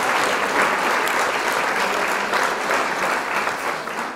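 A crowd applauding, a dense steady clapping that begins to fade out near the end.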